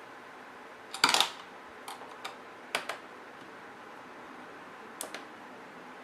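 A few sharp clicks and taps from the plastic HP Pavilion G7 laptop and its parts being handled while the screws are refitted. The loudest is a quick cluster about a second in, with single clicks at about two and three seconds and a pair near five seconds.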